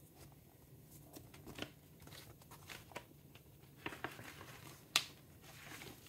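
Paper and cardboard rustling and scraping as a printed paper inner sleeve is slid out of a record jacket and a vinyl LP is drawn out of the sleeve, with scattered soft scrapes and one sharp click about five seconds in.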